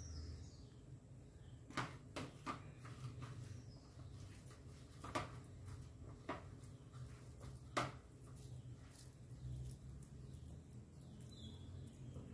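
Faint scattered clicks and taps of a metal spoon against a ceramic bowl as stuffing is scooped and pressed into pieces of snake gourd, about six taps in all, over a low steady hum.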